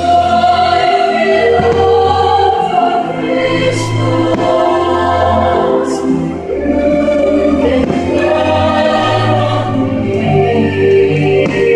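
A choir singing long held notes over musical backing: the soundtrack of a Christmas fireworks show.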